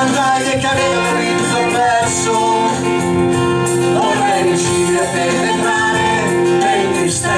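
Live band playing an instrumental passage on electric and acoustic guitars, bass guitar, keyboards and drums.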